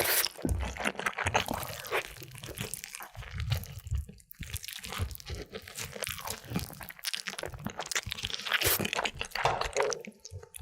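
Close-miked eating of crunchy food: a run of crisp, crackling crunches as someone bites and chews.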